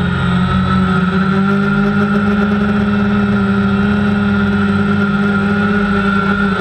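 Electric motors and propellers of a multirotor drone, heard close from the camera mounted on it: a loud, steady whine whose pitch drifts slightly as the drone flies and turns.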